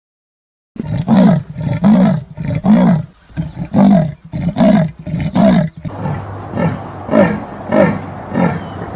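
A big cat calling in a rhythmic series of coarse, grunting roars, each with a rise and fall in pitch, about one every three-quarters of a second. About six seconds in, a quieter, slightly faster series follows.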